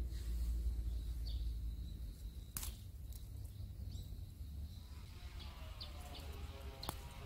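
Outdoor garden ambience: a low wind rumble on the microphone that eases off about halfway, with faint high chirps and a thin steady high tone. Two sharp clicks, one about two and a half seconds in and one near the end.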